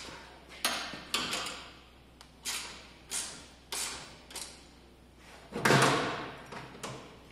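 Hard knocks and clunks from working on a flat tube fender: a string of sharp knocks spaced half a second to a second apart, then a louder, heavier clunk about five and a half seconds in.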